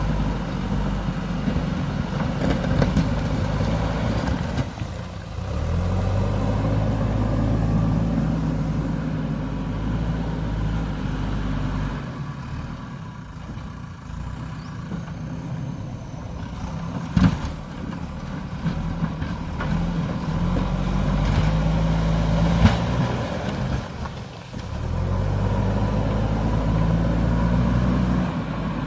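JCB backhoe loader's diesel engine working, revving up and holding high three times under load and dropping back toward idle in between. Two sharp knocks stand out, one just past the middle and one a few seconds later.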